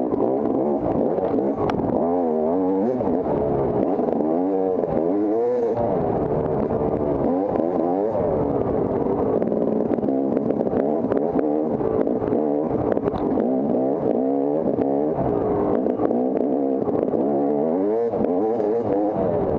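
Off-road dirt bike engine being ridden hard, its pitch rising and falling again and again as the throttle opens and closes, with scattered knocks and clatter.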